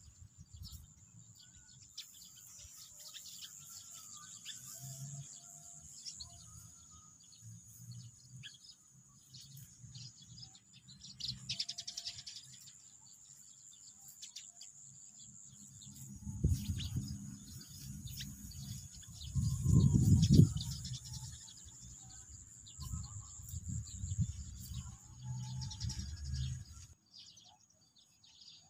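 Birds chirping over a steady high-pitched insect drone. In the second half a low rumble comes and goes, loudest about twenty seconds in.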